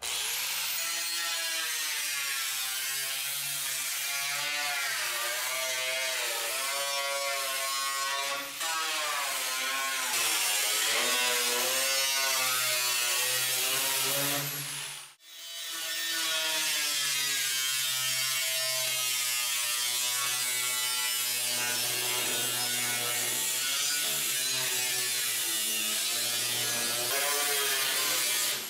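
Electric angle grinder with a thin cutoff wheel cutting through rusted sheet-steel cab corner and rocker panel. The motor's whine wavers up and down in pitch as the wheel bites into the metal, with one short break about halfway.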